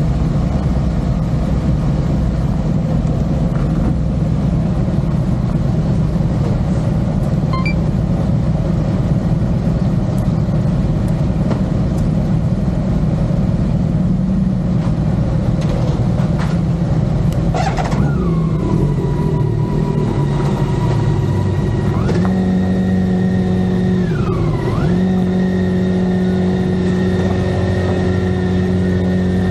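Motorcycle running at road speed with heavy wind noise. Its engine note settles into a steady pitch about 18 seconds in, rises again a few seconds later and dips briefly near 25 seconds.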